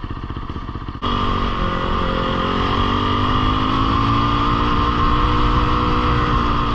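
Fantic Caballero 500 single-cylinder motorcycle engine putting along at low speed with slow, distinct pulses. About a second in, the sound jumps abruptly to a louder run as the bike rides on, its pitch rising gently and then holding steady.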